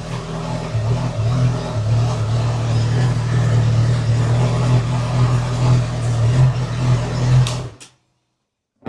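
Honda CB1000R inline-four motorcycle engine running on its stock exhaust: a loud, fairly steady low note with small rises and falls, cutting off abruptly about a second before the end.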